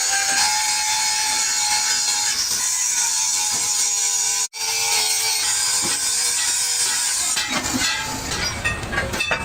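Power tool working steel on a truck wheel rim, a steady hiss with a faint motor whine. It cuts out for an instant about halfway through, and near the end turns rougher and crackly.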